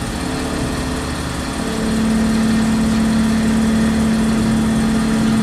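Tormach CNC mill's end mill cutting Hastelloy X under flood coolant: a steady cutting hum with a held tone that turns stronger and slightly lower about two seconds in. The tool is near the top of a trochoidal pass, cutting with only its tip, so it vibrates a little; the vibration is not from the tool dulling.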